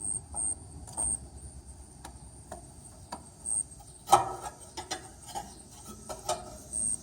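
Scattered clicks and knocks from hands and tools working on an air-conditioner condenser's capacitor wiring, with a sharp clack about four seconds in and another near six seconds. Short high insect chirps repeat throughout.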